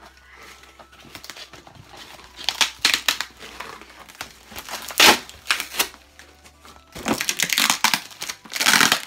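Cardboard box and brown kraft packing paper crinkling and tearing as they are ripped open by hand, in irregular bursts. The loudest are about five seconds in and again near the end.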